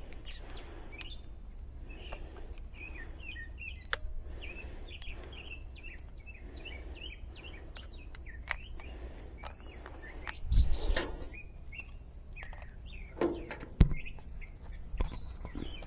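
Small birds chirping and twittering steadily, with a short burst of clattering about two thirds of the way through and a sharp knock near the end.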